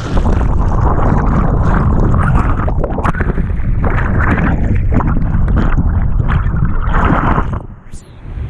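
Whitewater rapids rushing and splashing loudly, with wind buffeting the microphone. There are frequent sudden surges, and the sound drops away briefly near the end before it returns.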